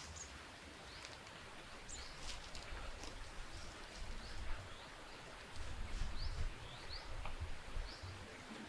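Small birds chirping: short, high, slurred chirps repeated about once or twice a second, over a low rumble.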